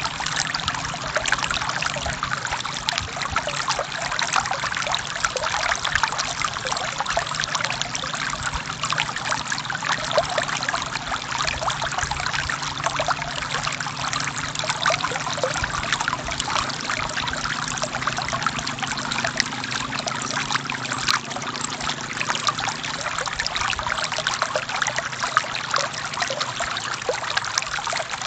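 Forest stream flowing steadily: a continuous trickling rush of water with fine splashing detail and no pauses.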